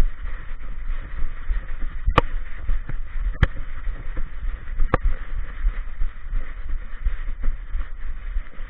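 Handling noise of an action camera strapped to a walking dog's back: a steady, uneven low thudding and rubbing as the dog moves, with three sharp knocks between about two and five seconds in.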